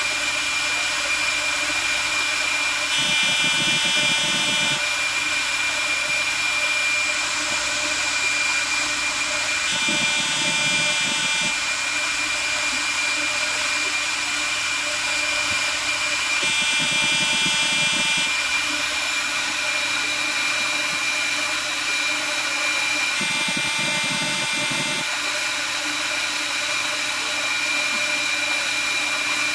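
A jewellery CNC machine working on a bracelet, running with a steady high whine. About every six to seven seconds there is a short, rougher burst of under two seconds as the machine makes a move.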